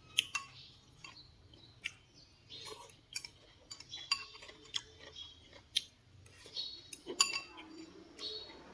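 Eating utensils clinking against a bowl while eating noodle soup: irregular sharp clinks, several of them ringing briefly.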